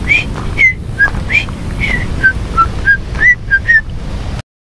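A person whistling a short tune of quick, separate notes at varying pitches, some sliding up and some down, over a steady low rumble; it stops abruptly near the end.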